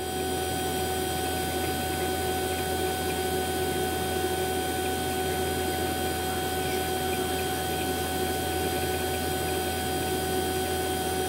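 Fieldpiece VP85 two-stage rotary-vane vacuum pump running with a steady, constant hum. It is pulling a deep vacuum of about 210 microns on an empty refrigerant recovery tank, near the end of the evacuation.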